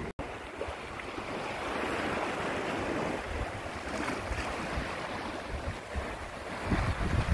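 Small lake waves washing against a rocky shoreline, with wind buffeting the microphone, stronger near the end.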